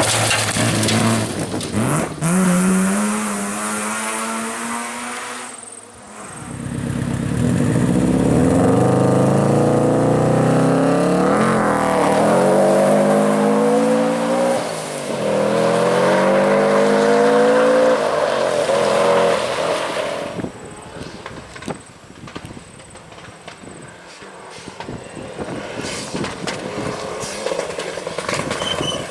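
Rally car engines revving hard through the gears, climbing and dropping in pitch with each shift as the cars pass, then fading away into the distance about two-thirds of the way through.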